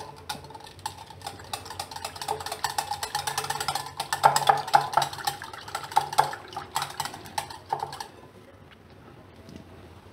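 Wire whisk beating yogurt in a glass bowl: a fast run of light ticks as the wires hit the glass, stopping about eight seconds in.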